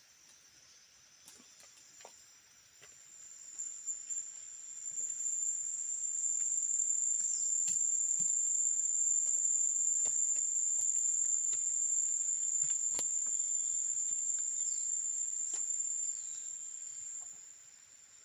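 An insect's steady, high-pitched trill that builds up over a few seconds, holds for about ten seconds and fades out near the end. Faint scattered clicks and a few short falling chirps sound underneath.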